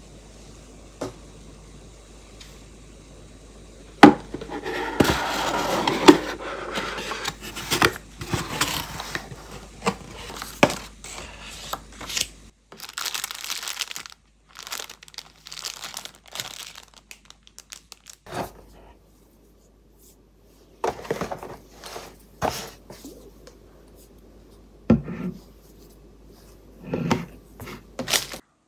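Packaging being handled during an unboxing: plastic wrapping crinkling and tearing for several seconds after a sharp click, then scattered short rustles and knocks as items are taken out of a cardboard gift box.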